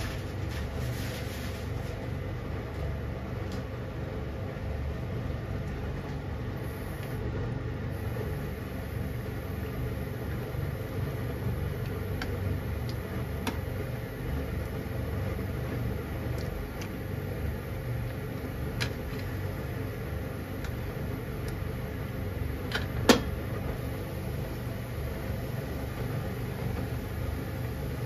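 Udon and chicken simmering in a pan of broth on a gas stove: a steady low rumble of burner and bubbling liquid, with scattered faint ticks and one sharp click about three-quarters of the way through.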